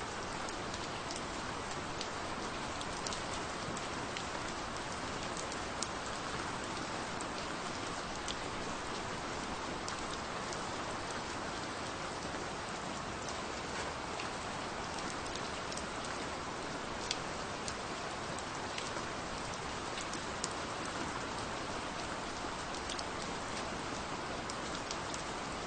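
Gentle rain falling steadily: an even hiss with scattered sharp drop ticks.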